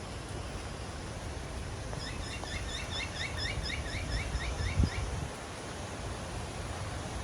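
A bird calls a quick run of about a dozen rising notes, roughly four a second, for about three seconds over a steady hiss of rain. A single low thump comes near the end of the calls.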